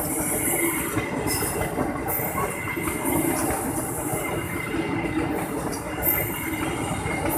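Passenger train coaches running past on the rails: a steady rumble and rush of wheels on track, with a high hiss that comes and goes.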